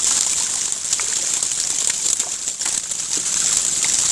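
Live catfish crowded in a shallow net, flapping and splashing as hands scoop them into plastic baskets: scattered wet slaps and splashes over a steady high hiss.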